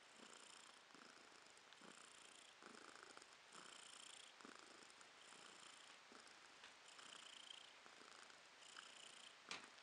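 A domestic cat purring faintly, close up, the purr swelling and fading with each breath about once a second. A sharp click sounds near the end.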